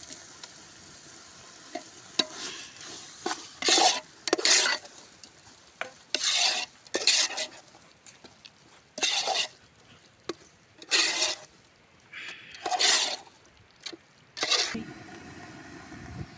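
A ladle stirring a pan of sizzling curry base, with ground shallots frying in oil: about eight separate scraping strokes over a steady low sizzle.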